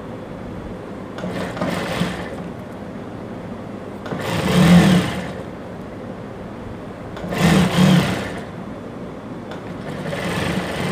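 Industrial sewing machine stitching lace onto the edge of pleated organza in about four short runs of about a second each, the second the loudest, with a steady low motor hum between runs.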